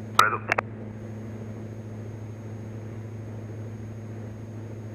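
Cessna 172's engine and propeller in cruise, a steady low drone heard through the headset intercom. A brief radio call ("Ready") with a couple of clicks comes just after the start.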